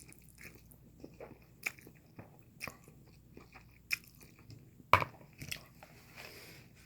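Close-up mouth sounds of someone eating instant noodles: soft chewing with scattered wet clicks, and one sharper, louder click about five seconds in.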